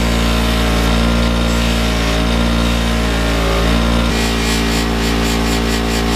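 Electric bench buffer motor running steadily with its buffing wheel spinning. From about four seconds in, a fast, regular rubbing joins it as a small raw aluminum plate is pressed against the wheel for polishing.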